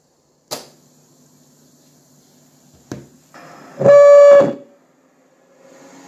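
Two sharp clicks a couple of seconds apart, then a faint hum and a loud, steady electronic tone lasting under a second, from a Hitachi TRK-8240RM radio cassette boombox.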